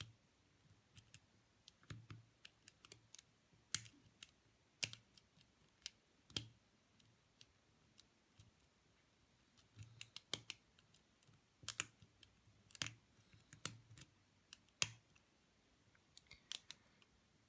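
Single-pin picking of an Abus Brady padlock's metal core: the pick probes the pin stacks under tension from the tension wrench, with small sharp metallic clicks and ticks at irregular intervals.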